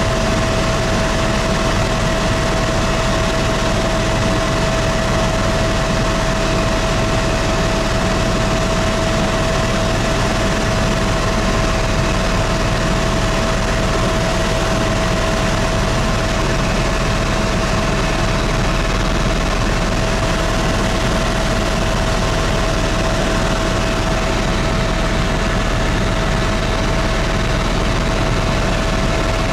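Helicopter cabin noise in steady cruise: a constant engine-and-rotor rumble with a steady whine over it, unchanging throughout.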